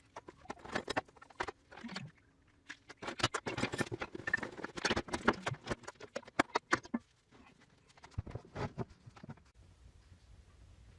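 A quick, irregular run of sharp clicks and taps, thickest in the middle and thinning out near the end, with no motor running.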